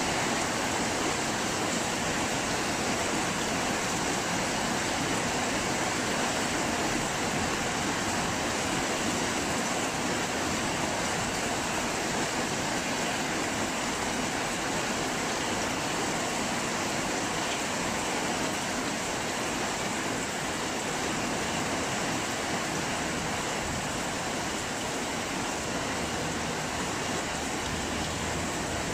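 Storm rain falling steadily, an even unbroken hiss.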